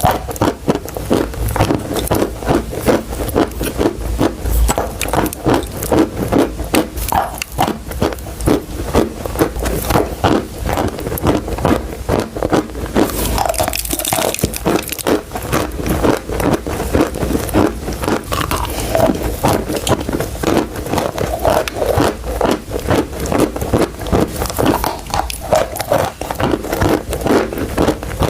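Chalk sticks being bitten and chewed close to the microphone: a continuous run of crisp, crunchy bites and chews, several a second.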